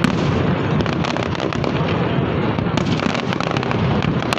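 Fireworks display: a dense, continuous run of crackling, popping and bangs as many aerial shells burst one after another, with no break.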